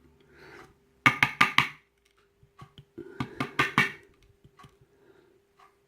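Small metal lock parts knocked sharply on a hard work surface in two quick bursts of several taps each, about a second apart: a disassembled Euro cylinder being tapped to shake the springs and pins out of its pin chambers.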